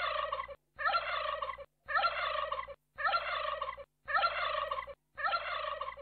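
Flamingos honking and gabbling: the same burst of calls, just under a second long, repeats about once a second with a short silence between each, like a looped recording.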